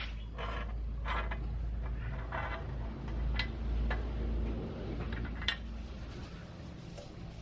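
Light metallic clicks, taps and short scrapes of small parts being handled, a few sharp ticks among them, over a steady low hum.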